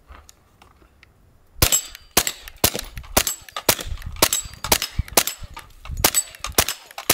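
Suppressed Kriss Vector .45 ACP carbine with a Rugged Obsidian 45 suppressor fired in a steady string of subsonic rounds, about two shots a second, starting about a second and a half in.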